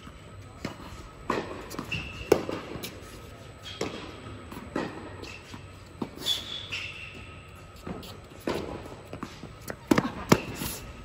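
Tennis balls struck by rackets and bouncing on an indoor hard court during a rally: a string of separate sharp pops echoing in a large hall, with short shoe squeaks on the court surface. The loudest hit comes near the end.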